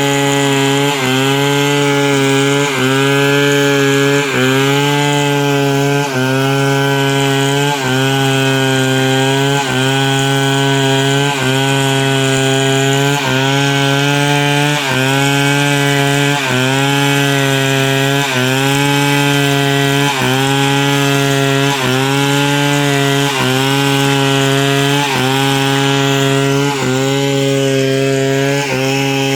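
Chainsaw running under load, ripping a log lengthwise into planks. Its engine note dips briefly and recovers about every second and a half to two seconds.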